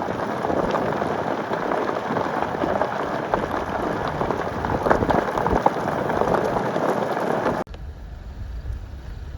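A dense, crackling, rain-like rush full of small clicks. It cuts off suddenly near the end and gives way to a quieter low rumble of machinery.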